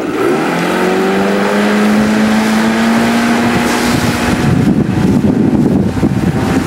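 Outboard motor on a ski boat opening up under load to pull a water skier up. Its pitch rises in the first second and then holds steady. From about four and a half seconds in, rushing wind and water cover it.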